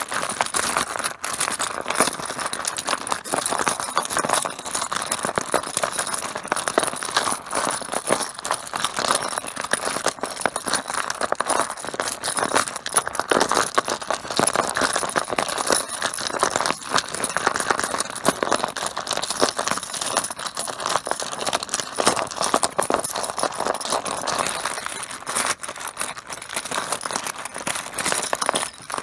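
Mahjong tiles clattering against each other: a dense, continuous run of small hard clicks and knocks without a break.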